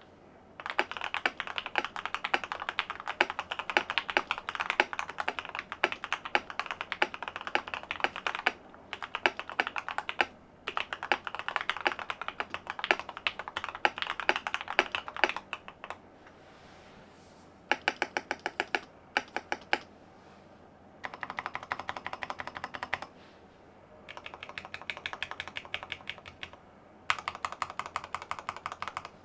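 Epomaker TH80 mechanical keyboard with lubed Gateron Oil King linear switches and a tape mod, being typed on fast in bursts of several seconds with short pauses between. Near the middle comes a run of evenly spaced key presses.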